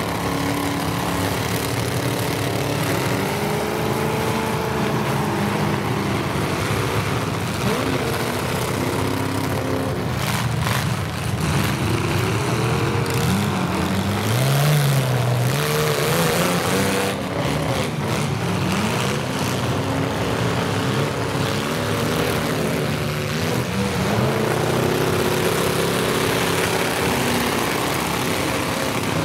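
Several demolition-derby cars with open, unmuffled exhausts running and revving hard at once, their engines rising and falling in pitch as they spin their wheels in mud and ram each other. A few sharper knocks come around ten and seventeen seconds in.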